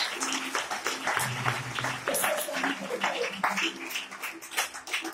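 An audience clapping and applauding, many irregular hand claps, with music playing underneath.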